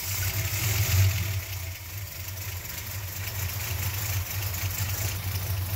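Chrysler slant six inline-six engine idling just after a cold first start with the block at 34 degrees, its valve cover cut open over the rocker arms. It runs steadily and swells briefly about a second in.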